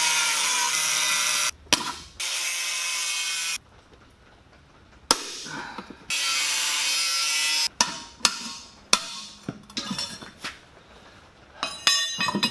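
Dewalt angle grinder cutting into a rusty steel chair seat plate around its centre hub, running in three bursts of a few seconds each with short pauses between. Several sharp knocks and clicks of metal follow near the end.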